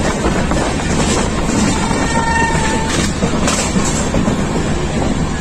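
Passenger train running along the track, heard from on board: a steady, loud noise of wheels on rails.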